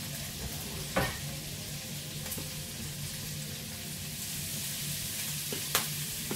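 Pieces of meat frying in a wide pan with a steady sizzle, with two sharp clicks, one about a second in and one near the end.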